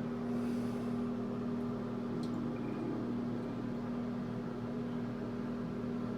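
Steady mechanical hum with one strong low tone and fainter overtones, unchanging throughout.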